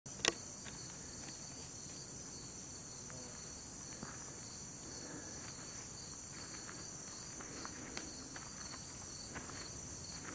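Steady, high-pitched chorus of evening insects such as crickets, with one sharp click just after the start and a few faint ticks.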